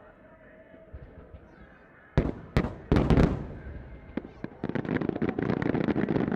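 Twelve-inch aerial firework shells bursting in a rapid barrage. A few heavy booms come about two seconds in, then a dense run of overlapping sharp bangs and crackles.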